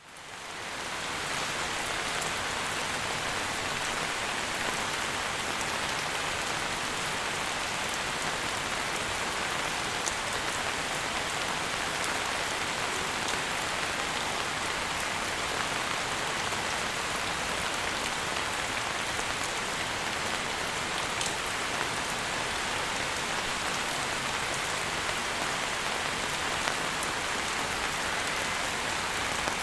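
Steady rain falling, an even hiss with now and then a single drop ticking a little louder. It fades in over the first second.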